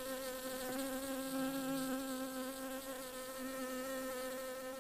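Bees buzzing: a steady, slightly wavering buzz with a clear pitch, with a second, lower buzz joining briefly about a second in.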